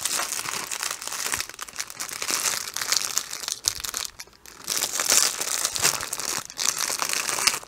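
Clear plastic wrapping on a pack of diamond painting drills crinkling as hands grip and turn it, with a short lull about four seconds in.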